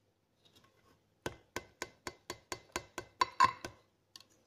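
About ten quick, evenly spaced clicks, roughly four a second, with a louder clatter near the end: a metal utensil knocking against a glass baking dish.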